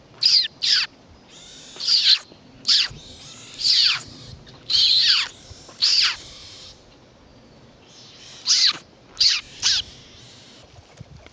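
Young pine martens calling: about ten short, high squeals, each falling sharply in pitch, in irregular groups with a pause of about two seconds in the middle.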